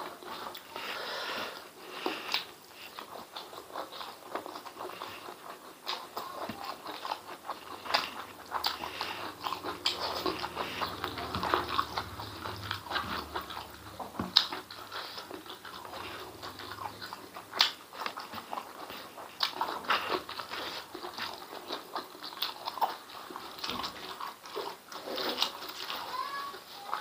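Close-up eating sounds of a man chewing stewed beef and chicken intestines with rice: wet smacking and irregular clicks from the mouth, with no pause.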